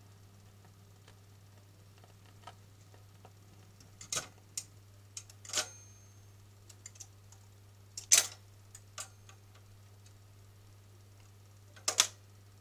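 Automatic record changer of a Graetz Grazioso radiogram cycling between 7-inch singles: the tone arm lifts and swings out with a run of sharp mechanical clicks and clunks, the loudest about eight seconds in and another near the end, with one brief squeak. A steady low hum runs underneath.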